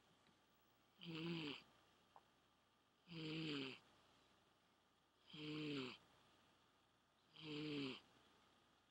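Domestic cat snoring in its sleep: four snores about two seconds apart, each lasting under a second.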